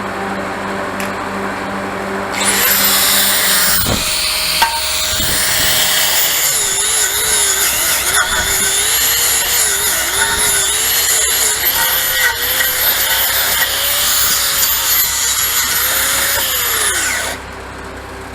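Stick-welding arc with a 7018 rod: a loud, steady crackling hiss starts a couple of seconds in, runs about fifteen seconds as a bead is laid, then cuts off. Under it an engine-driven welder, a Lincoln SA200, runs throughout and picks up speed when the arc is struck.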